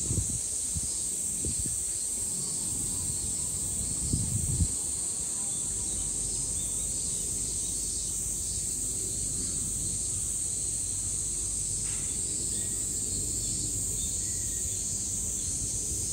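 Steady high-pitched chorus of summer cicadas, with a couple of low thumps about four seconds in.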